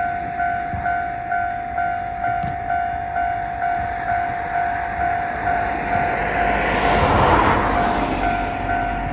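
Japanese railroad-crossing warning bell ringing, a steady electronic 'kan-kan' ding about twice a second, while a train rushes over the crossing, loudest about seven seconds in.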